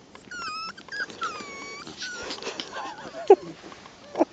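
Five-week-old puppy whining in high, thin squeaks, then letting out two short, louder yelps near the end.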